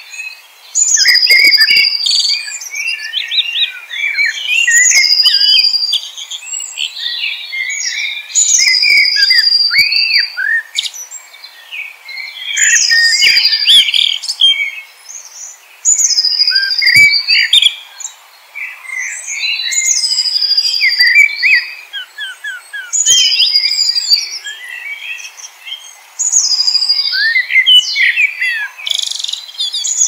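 A songbird singing the same complex phrase over and over, about every three and a half seconds with short pauses between. Each phrase opens with a high note that slides down and levels off, followed by a quick jumble of lower, rapid notes.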